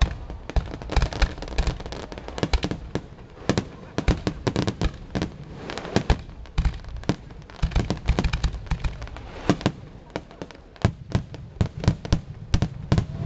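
Starmine fireworks: a rapid barrage of aerial shells bursting in quick succession, several sharp bangs a second.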